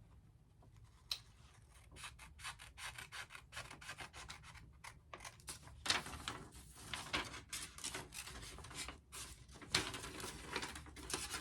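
Paper being worked by hand for a vision board: quick, irregular rubbing and scraping strokes that start about two seconds in.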